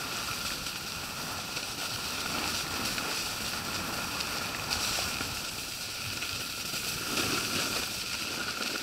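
Steady hiss of snowboards sliding over packed snow, mixed with wind rushing over the action camera's microphone as the rider moves downhill.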